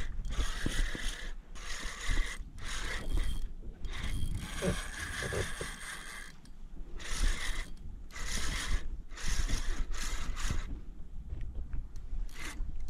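Fishing reel being wound in to bring in a hooked fish, a whirring of the reel's gears in repeated spells broken by short pauses.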